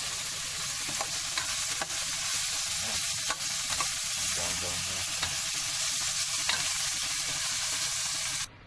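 Chicken pieces frying in a pot with garlic, onion and ginger, a steady sizzle with a spoon scraping and stirring through them in scattered clicks; the sizzle cuts off suddenly near the end.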